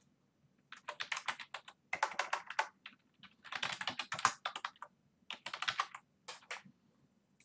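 Typing on a computer keyboard: about five short bursts of rapid keystrokes separated by brief pauses.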